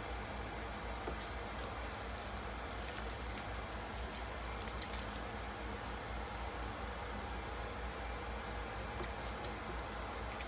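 A small knife cutting and scraping raw chicken thigh meat off the bone on a plastic cutting board: soft wet squishes and scattered light clicks of the blade, over a steady low hum.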